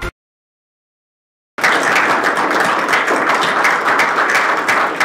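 Dead silence for about a second and a half, then audience applause that starts suddenly and goes on steadily: many hands clapping.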